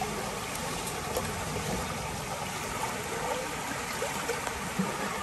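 Fast-flowing muddy stream water rushing steadily against and through a fine-mesh fishing net set in the current.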